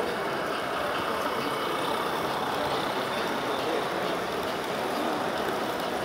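Steady background hubbub of a crowded exhibition hall: indistinct voices blended into an even noise, with no single sound standing out.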